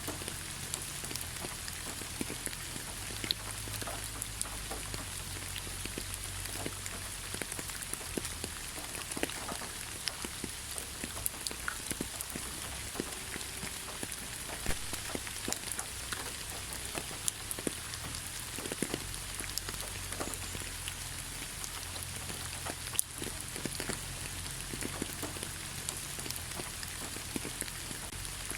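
Light rain falling on leaves: a steady soft hiss with many separate drops pattering irregularly.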